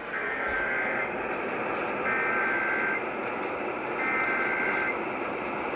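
Emergency Alert System SAME data header heard over AM radio through static: three bursts of rapid two-tone digital data, each about a second long, with about a second of hiss between them. It is the coded header announcing an Amber Alert, a Child Abduction Emergency.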